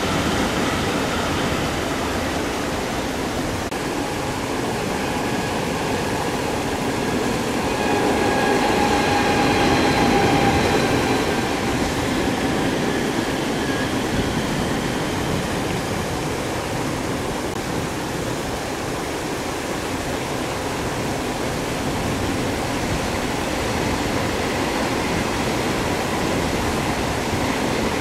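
Steady splashing of paddlewheel aerators churning a fish pond, mixed with passing passenger trains running along the far track. A faint whining tone rises out of it about eight seconds in and fades by about thirteen seconds, where the sound is loudest.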